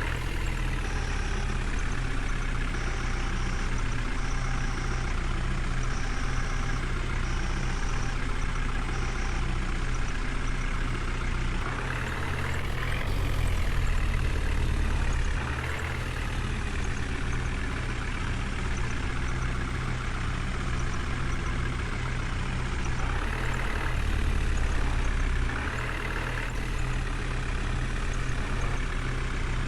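Diesel engine of a JCB 3DX backhoe loader running steadily as it works, rising twice under load for a few seconds, about twelve seconds in and again near twenty-four seconds. Faint short high-pitched beeps repeat during the first several seconds.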